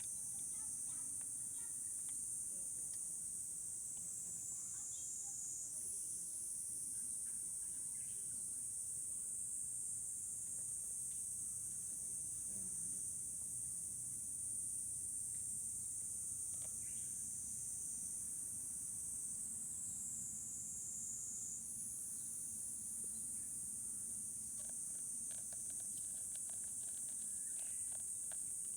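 Steady, high-pitched chorus of insects trilling without a break, its pitch shifting slightly twice.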